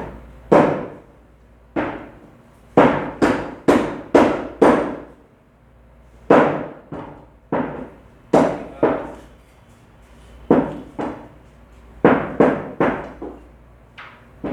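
Butcher's cleaver chopping mutton on a chopping block: about twenty sharp chops, irregularly spaced and often in quick runs of three or four, with short pauses between runs.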